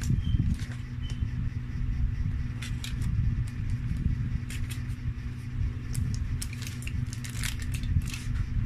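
Aluminium foil crinkling in short crackly bursts as the burger is handled and lifted out of its foil wrapper, the busiest burst near the end, over a steady low hum.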